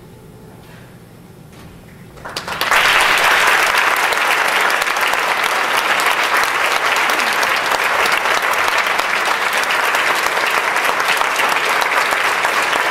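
Audience applauding: after about two seconds of quiet, a burst of clapping starts and then continues steadily.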